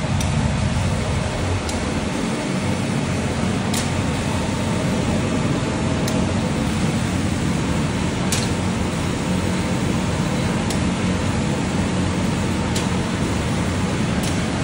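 Laser cutting machine at work, its air-assist and fume-extraction blowers giving a steady rushing hum, with a faint tick about every two seconds.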